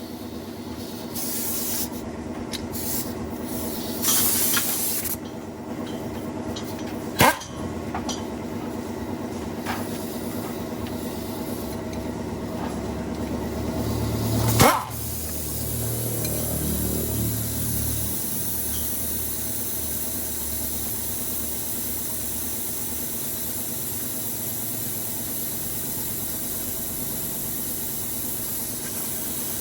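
Công nông engine running steadily, with a burst of hissing about four seconds in and two sharp knocks, about seven and fifteen seconds in.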